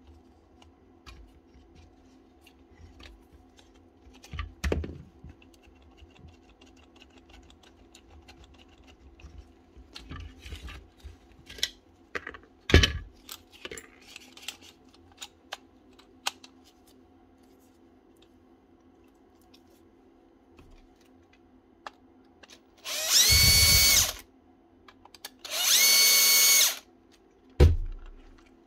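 Clicks and knocks of parts being handled, then two short runs of a handheld power tool's motor, each about a second and a half, with a steady high whine. A knock follows just after.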